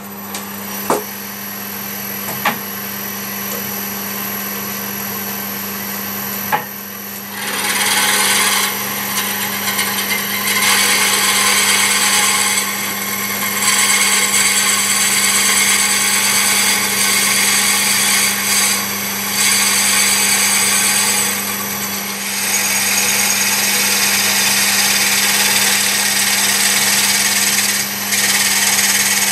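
Wood lathe running with a long drill bit boring lengthwise into a walnut log, the log fed onto the bit by the tailstock. A steady motor hum carries throughout, with a few sharp clicks at first; about seven seconds in the rougher, louder sound of the bit cutting into the wood takes over, easing off briefly now and then.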